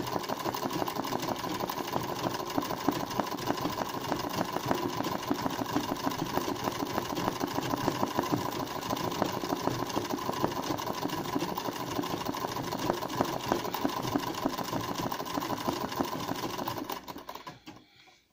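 Sewing machine stitching free-motion embroidery, running fast and steady with rapid needle strokes, then slowing and stopping near the end.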